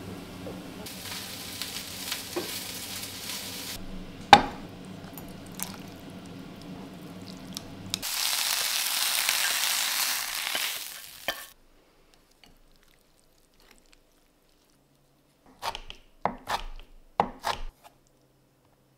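Hot pan sizzling loudly for a few seconds as stir-fried vegetables and tofu are scraped out of it with a spatula, cutting off suddenly. Before it, a steady low kitchen hum and a single sharp knock; near the end, a few short light clicks of chopsticks against the bowl.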